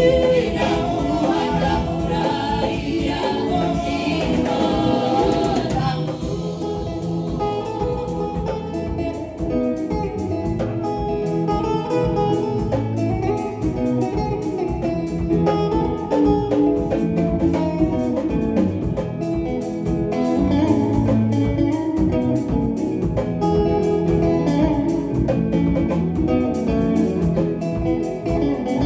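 Choir singing with guitar accompaniment.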